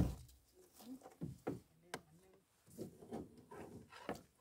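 Gill net being hauled by hand into a small rowboat: scattered soft rustles and knocks from the net and fish against the boat and tub, with one sharp knock about two seconds in.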